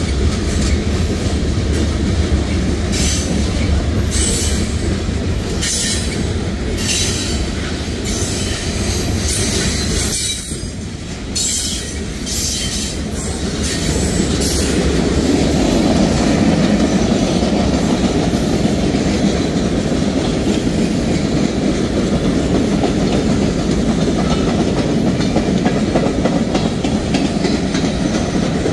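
Cars of a mixed freight train rolling past: a steady rumble of steel wheels on the rails, with repeated clatter over the rail joints.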